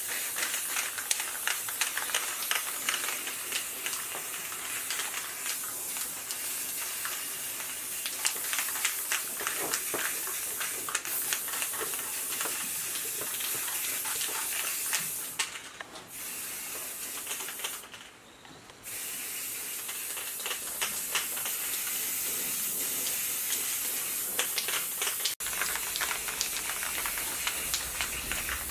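Steady high hissing spray with fine crackling through it, dropping out briefly twice around the middle.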